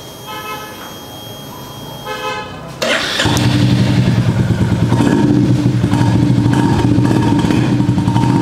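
Royal Enfield Hunter 350 single-cylinder engine being started: a couple of brief cranking whirs, then it catches about three seconds in and settles into a steady idle. It runs through an aftermarket three-mesh 'Indori' silencer with the old-style Bullet beat, a sound the owner finds good.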